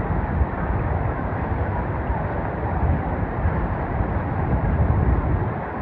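Mountain stream rushing steadily toward the Kozjak waterfalls: a dense, even water noise, heavy in the low end.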